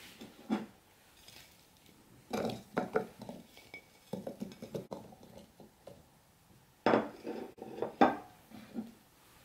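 Pieces of red bell pepper tumbling from a plate into the plastic bowl of a mini food chopper: light clattering knocks in several clusters, loudest near the end.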